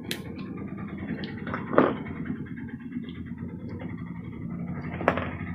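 Low steady rumble of a vehicle going by, with a few sharp taps from hands handling the cardboard packaging, the loudest about two seconds in.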